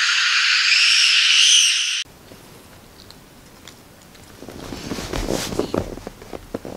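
A hissing sound effect from the vlog's intro, all in the high pitches and shifting slightly in tone, cuts off suddenly about two seconds in. It gives way to quiet close-up room sound: faint small clicks and smacks from a small dog at the mouth, with some rustling near the end.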